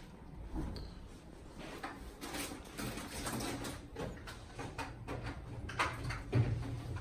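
Irregular knocks, clicks and clunks of a hotel minibar cabinet door and its lock being handled as the minibar is locked, with a louder knock about six seconds in.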